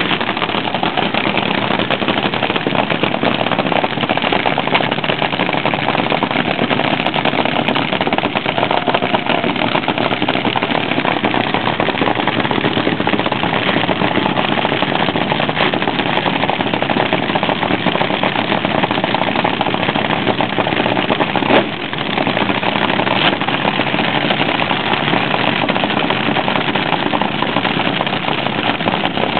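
Blown nitromethane-burning engines of vintage front-engine top fuel dragsters idling together in a loud, steady, rapid crackle: the nitro 'cackle'.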